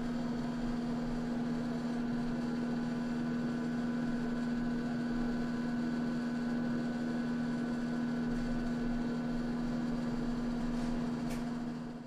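Steady low electrical hum over a faint hiss, fading out at the very end.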